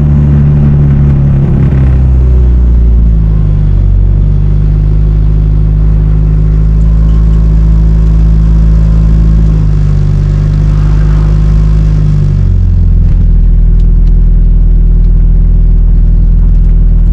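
Straight-piped, turbocharged Honda B-series four-cylinder running loudly under way, a deep steady drone whose revs ease down about two to three seconds in and change again near twelve seconds. Its rough straight-pipe note is one the owner first mistook for a misfire.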